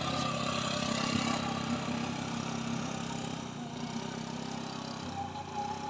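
Honda Spacy scooter's single-cylinder engine running under load as it climbs a steep hill with two riders aboard, fading as it moves away.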